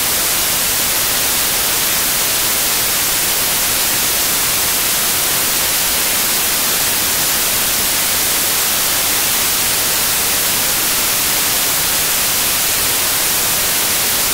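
Loud, steady static hiss like white noise, even throughout, with no hoofbeats or other sounds audible through it.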